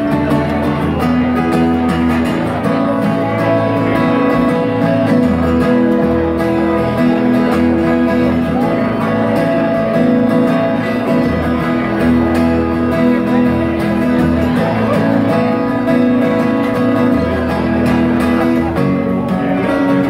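Acoustic guitar strummed in a live song, the chords changing every second or two over held low bass notes.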